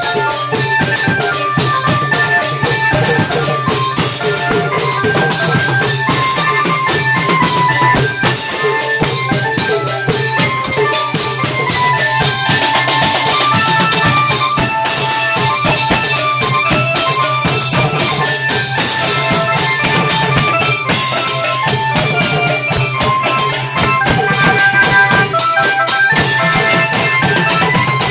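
Thai klong yao long-drum ensemble playing a fast, steady rhythm of drums and cymbals, with a melody line of short held notes over it.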